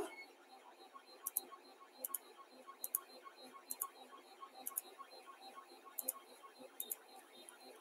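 Computer mouse clicking: about seven faint press-and-release double clicks, roughly one a second, as spreadsheet cells are control-clicked one at a time.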